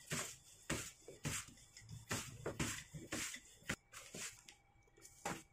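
A wooden rolling pin working thin dough on a plastic sheet over a wooden board: a series of short plastic rustles, one every half-second or so, easing off briefly near the end.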